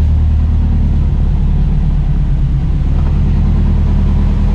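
Subaru WRX STi's turbocharged flat-four engine idling steadily with a low rumble.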